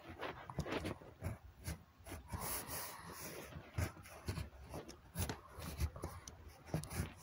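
Irregular rubbing and soft knocks, typical of a covered or handled phone microphone.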